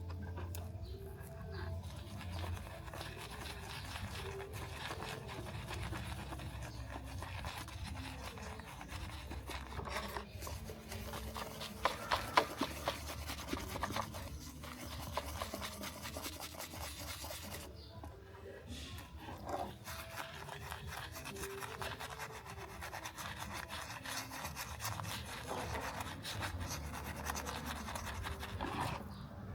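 Steady, fast, scratchy hand rubbing on a small toy car part, with a few louder scrapes about twelve seconds in.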